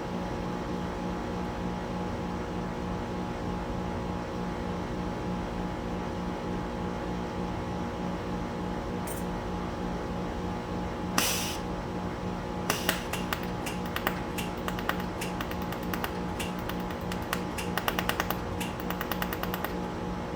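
Pulsed laser welder spot-welding a fine 0.2 mm wire to a 3 mm sensor tube: a steady machine hum, a brief hiss about halfway through, then a run of sharp snapping clicks from the laser pulses, some coming in quick clusters near the end.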